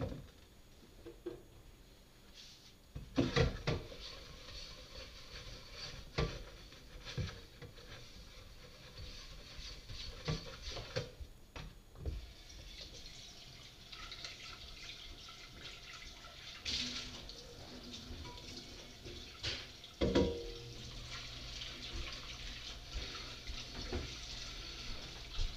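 Kitchen faucet running into the sink, running steadily through the second half, with scattered knocks of things being handled in the sink.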